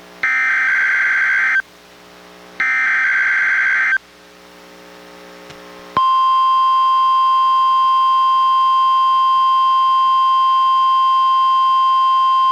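NOAA Weather Radio test: the last two of the three digital SAME header data bursts, each a harsh buzzing burst about a second and a half long, a second apart. About six seconds in, the 1050 Hz warning alarm tone starts as a single steady tone.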